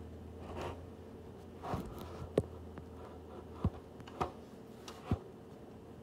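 A few faint, short knocks and scrapes, typical of a phone camera being handled and set down on a rug, over a low steady hum; the vacuum is not running.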